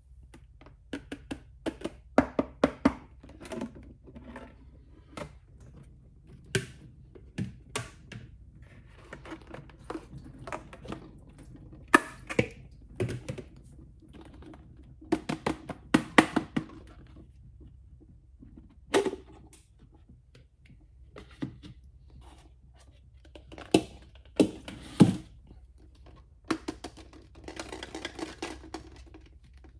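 Large hollow plastic eggs being handled: irregular sharp clicks, taps and thunks as the plastic halves knock together and against the toilet bowl, with a couple of stretches of plastic rubbing and scraping.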